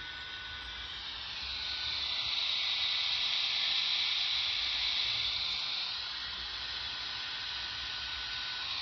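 Quansheng UV-K5 handheld receiving on 70 cm in SSB mode: steady receiver hiss with a faint steady beat tone, the distant beacon's carrier heard weakly through the noise. The hiss swells about a second and a half in and eases back around six seconds.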